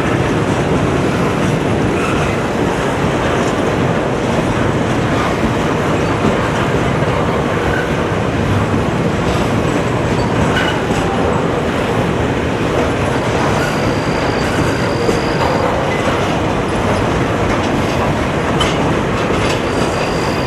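Double-stack intermodal freight train's cars rolling past: steady wheel and rail noise with clickety-clack over the rail joints, and a faint high wheel squeal for a couple of seconds past the middle and again at the end.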